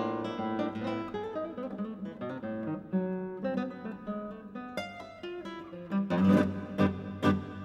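Solo nylon-string classical guitar playing a tango: plucked melody over chords, then about six seconds in, a run of loud strummed chords in quick succession.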